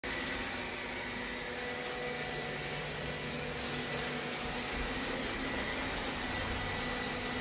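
Roborock S5 robot vacuum running: a steady whir of its suction fan and brushes, with a faint high steady whine.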